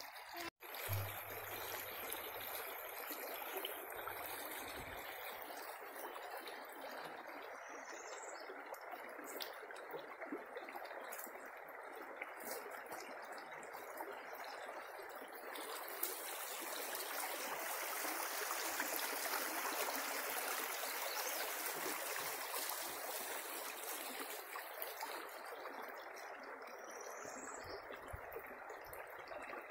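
Shallow brook flowing steadily, a little louder for several seconds past the middle.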